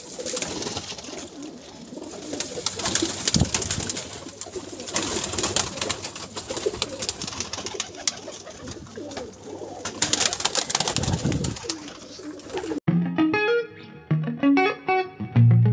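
A loft full of Teddy pigeons cooing, with many sharp wing claps and flutters as birds fly up. About three seconds before the end it cuts abruptly to guitar music.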